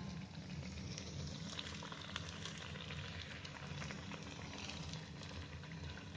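A rice-flour onion-and-cucumber vada deep-frying in hot oil in a kadhai: steady sizzling and crackling as the oil bubbles around it and is spooned over it, with a steady low hum underneath.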